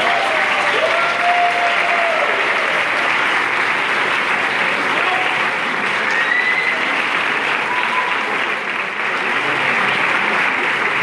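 Audience applauding steadily, with a few brief calls from the crowd.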